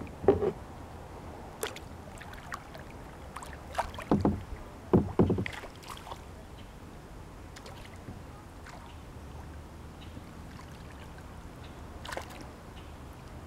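Water splashing and knocking against a plastic kayak hull: a few short, sharp knocks and splashes, once just after the start, several around four to five seconds in, and once more near the end, over a low steady background.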